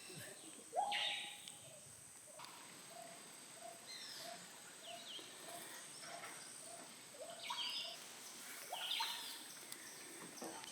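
Faint rainforest ambience: a steady, high insect whine, with a string of short, evenly spaced animal calls about two a second in the middle and scattered higher chirps.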